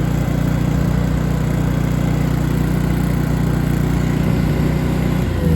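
Miller Bobcat engine-driven welder running steadily, its engine note dropping in pitch near the end as it slows down.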